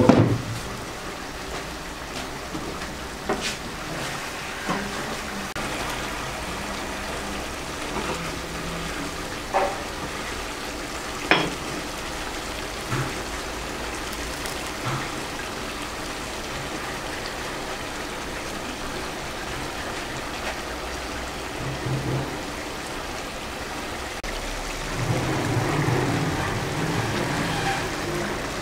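Chicken pieces in broth bubbling in a frying pan on a gas burner: a steady bubbling hiss with a few sharper pops, a little louder near the end.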